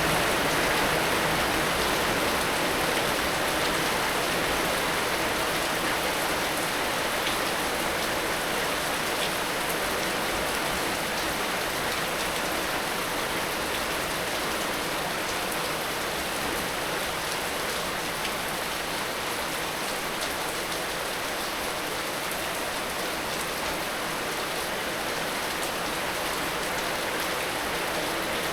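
Heavy rain falling steadily, a dense even hiss of drops striking surfaces with fine individual patters.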